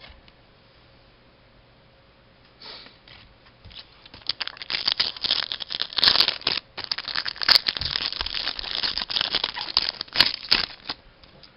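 Foil wrapper of a hockey card pack crinkling and tearing as the pack is opened, then the cards inside rustling. It is quiet for the first few seconds and then turns into a dense, crackly run of crinkles and sharp clicks until near the end.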